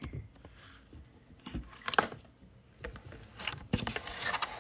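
Scattered clicks and short rustles of handling close to a phone's microphone.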